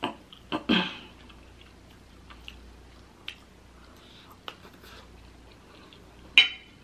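Close-up eating sounds: a forkful of pancit noodles being chewed, with soft mouth clicks. A metal fork clinks sharply against the plate near the end, ringing briefly.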